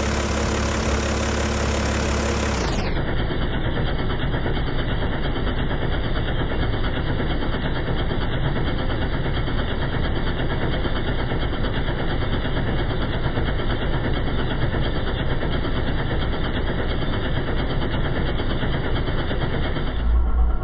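BMW M57 straight-six turbodiesel idling with a steady knocking rhythm. From about three seconds in it is played back slowed down, so it sounds lower and duller.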